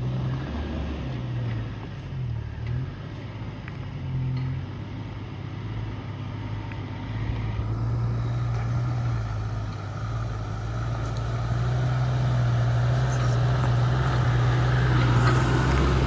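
Toyota Land Cruiser troop carrier's engine pulling up a steep dirt climb. The revs rise and fall at first, then hold steadier and grow louder as the vehicle comes close.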